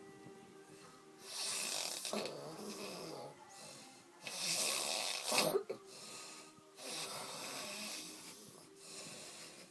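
A man passed out drunk, snoring: about three loud snoring breaths a few seconds apart, with a weaker one near the end. The loudest, about five seconds in, has a sharp rattling peak.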